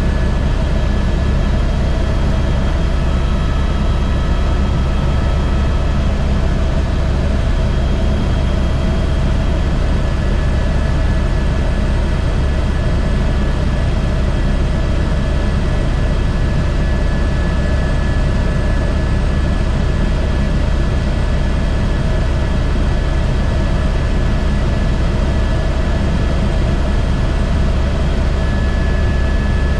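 Airbus H125 helicopter's single turbine engine and main rotor running steadily in flight, a constant low drone with a steady high whine over it.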